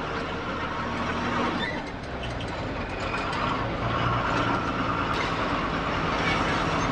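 Truck engine running and tyre and road noise heard from inside the cab while driving along a highway.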